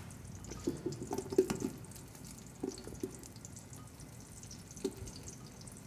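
Scattered light taps and patters as chopped onion is added to a cooking pot, in small clusters over a faint background hiss.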